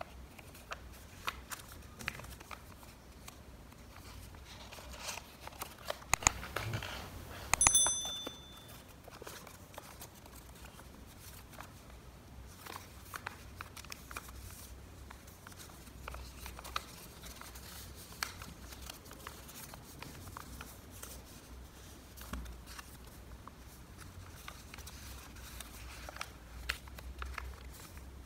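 A sheet of origami paper being handled and folded, with soft rustling and scattered small crinkles and clicks as the creases are pressed. About eight seconds in there is a brief high-pitched ring.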